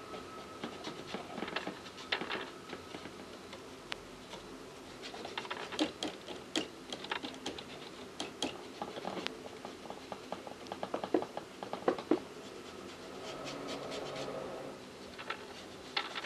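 Paintbrush dabbing and scraping paint onto a model truck's chassis frame while the frame is handled, a run of small irregular taps and scratches, busiest in the middle.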